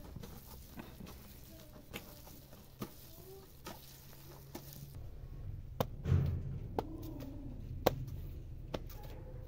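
Hands kneading and squeezing soft, wet bread dough in a plastic basin: faint squishing, with a few light knocks and a low thump in the second half.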